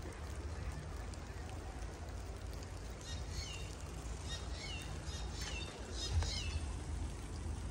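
A songbird calling a short series of high notes that fall in pitch, about one a second, starting a few seconds in, over a steady low rumble.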